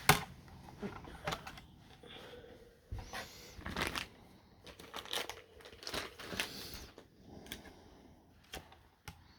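Irregular small clicks, taps and rustles of hands handling a small plastic 1/24-scale RC crawler and its packaging. There is a sharp click at the very start.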